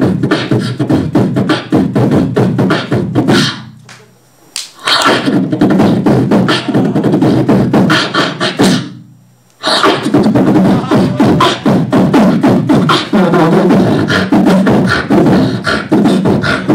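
Solo beatboxing into a handheld microphone: a fast, dense beat of mouth-made kick, snare and hi-hat clicks over a heavy bass line. Twice, about four and nine seconds in, the beat breaks off into a falling sweep and a short pause before dropping back in.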